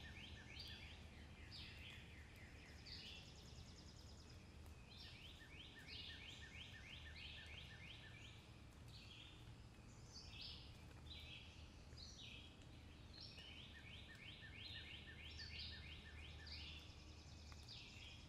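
Faint birdsong: a small bird repeating quick trilled phrases of several rapid notes, phrase after phrase, over a low steady hum.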